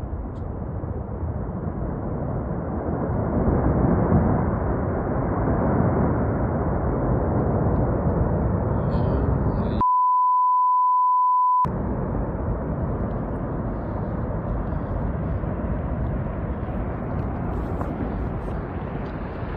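Loud, steady rushing storm noise, cut off about ten seconds in by a pure 1 kHz censor bleep that lasts about two seconds before the noise returns.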